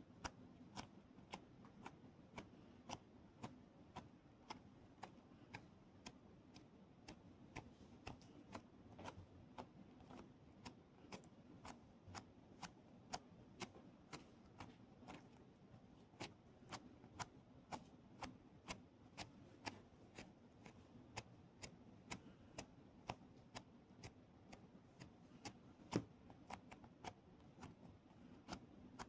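Keyboard keys clicked one at a time at about two a second, in a fairly even rhythm, with one louder click near the end.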